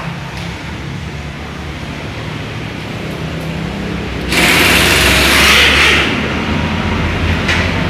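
Small motorcycle engine running steadily at idle, with a loud hissing rush over it from about four to six seconds in.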